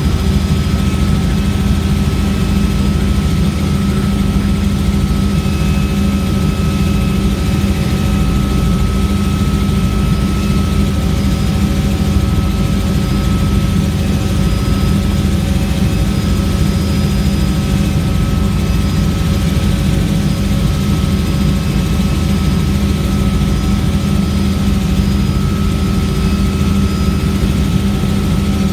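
Helicopter in steady cruising flight, heard from on board: a constant loud drone with a low hum and several steady whining tones above it.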